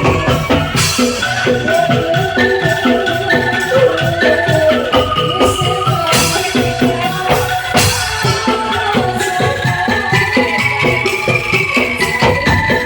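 Bamboo angklung ensemble playing a song: shaken bamboo tubes rattle out a pitched melody over a steady rhythmic beat.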